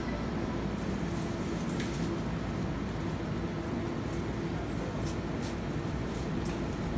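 Steady low hum and rumble of a convenience store's equipment and room noise, with a few faint clicks.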